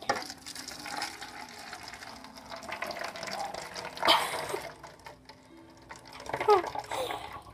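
Water from a cut-open water snake squishy toy pouring and splashing into a cup, with a sharp click at the start and another about four seconds in.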